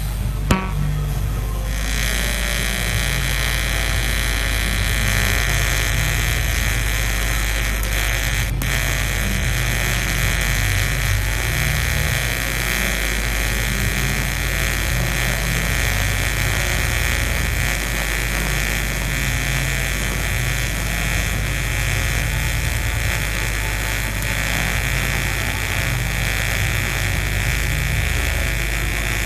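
TIG welding arc on stainless steel, struck with a sharp click about half a second in, then a steady buzzing hiss as the torch is oscillated to fill a gap.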